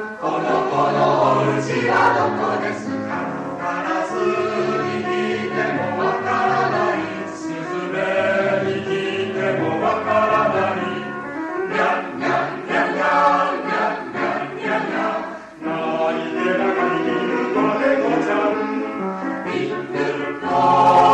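Mixed choir singing a Japanese children's song in phrases, with piano accompaniment, with a brief break in the sound about 15 seconds in.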